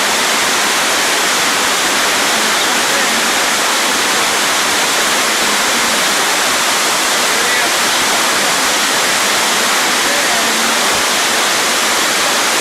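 Steady, even rushing of water falling over a waterfall, with no change in level.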